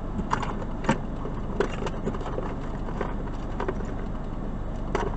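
Steady low hum of a car cabin, with a few scattered light clicks and rustles of someone moving about and handling things in the driver's seat.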